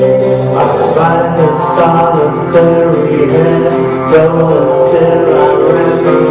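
Live band playing amplified guitar music through a club PA during a sound check, acoustic and electric guitars strumming steadily and loud.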